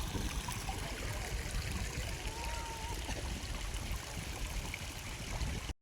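Steady trickling and running water from a stream, with a low rumble underneath.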